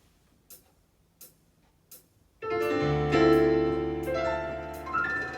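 Yamaha Electone electronic organ: a few faint evenly spaced clicks like a rhythm count-in, then about halfway through a piano-voiced keyboard passage starts abruptly, with a sustained bass coming in under it and a run of notes climbing near the end.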